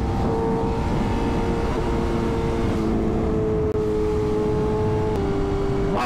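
BMW S1000RR inline-four engine cruising at highway speed under a heavy rush of wind noise. Its pitch holds steady, drifting slightly lower, and drops a step about five seconds in.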